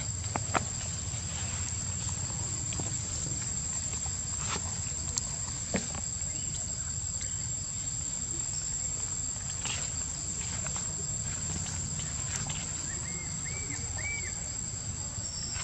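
Outdoor ambience dominated by a steady high-pitched drone of insects over a low rumble, with a few faint taps and three short chirps near the end.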